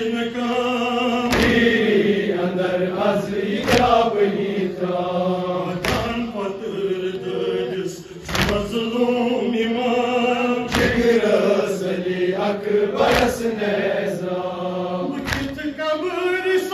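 A man chanting a nauha lament into a microphone in long, drawn-out lines, over unison chest-beating (matam) by the mourners around him: a sharp slap about every two and a half seconds.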